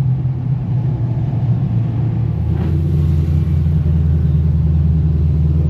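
V8 car engine rumbling steadily at cruising speed; about two seconds in its note drops to a lower, deeper rumble, as when easing off or changing gear.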